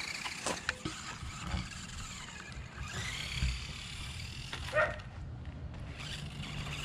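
1/24-scale ECX Barrage RC crawler driving over rough asphalt and concrete: a faint, steady motor and drivetrain noise with scattered small clicks, and one short, sharp sound about five seconds in.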